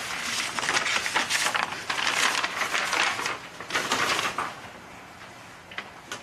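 Paper rustling and crinkling as a letter is opened and unfolded, in a run of noisy bursts over roughly the first four and a half seconds.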